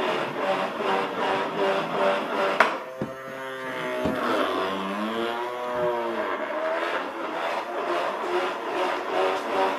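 Small 3-volt DC toy motor whining as it drives the car's CD wheels by friction, its plastic-sleeved shaft rubbing against the wheel rim. The pitch wavers, rising and falling as the wobbling wheel loses and regains contact, with a sharp knock about two and a half seconds in.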